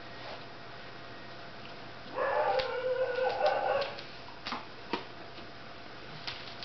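An animal call in the background, about two seconds long, starting about two seconds in, over a steady low hum; a few short clicks follow.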